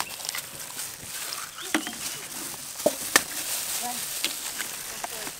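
Eggs being cracked against a stainless-steel bowl: a few sharp clicks of shell striking metal and breaking, spaced about a second apart, over low outdoor background.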